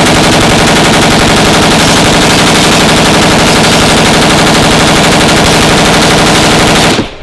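FN M249 light machine gun, fitted with a Krebs Custom IMS muzzle device, firing one long unbroken full-auto burst of 5.56 mm rounds for about seven seconds, then cutting off near the end. It is very loud, pinned at the top of the recording's level.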